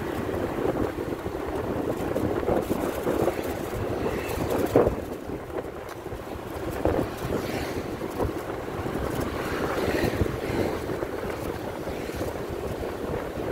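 Wind rushing over the microphone of a moving motorcycle, with its engine and road noise underneath, briefly louder about five seconds in.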